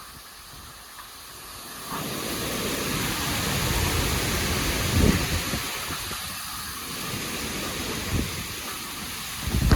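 Hurricane-force wind gusting and rumbling on the microphone over a steady high hiss. It builds about two seconds in, peaks around five seconds, eases, and surges again near the end.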